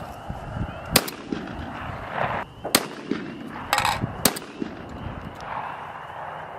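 Shotgun shots at skeet clay targets: a sharp report about a second in, then further sharp cracks near three and four seconds.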